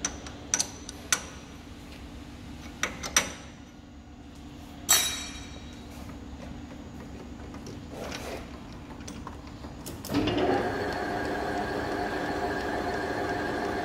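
Sharp metal clinks and knocks from handling the tool post of a geared-head lathe, with a short rushing sound about five seconds in. About ten seconds in, the lathe starts up and runs steadily, with a gear whine made of several steady tones.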